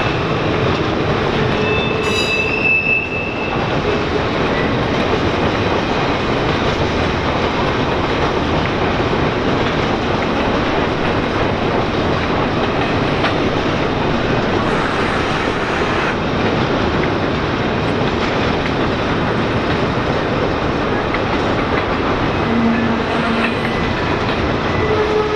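Norfolk Southern intermodal freight train rolling past, its car wheels clattering over the rails in a steady loud din. A brief high-pitched wheel squeal comes about two seconds in.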